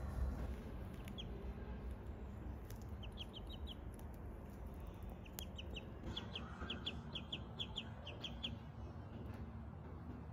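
Domestic ducklings peeping: short, high chirps in quick runs, a few about a second in, a run of five around three seconds, and the longest run of a dozen or so from about five to eight and a half seconds in.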